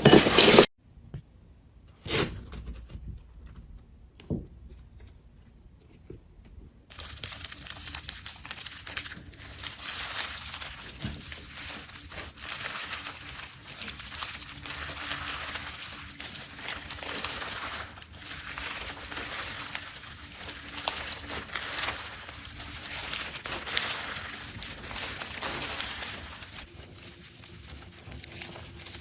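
Slime being squeezed and worked by hand, giving a continuous fine crackling and crinkling from about seven seconds in. Before that, after a short loud noise at the very start, it is nearly quiet apart from a couple of soft clicks.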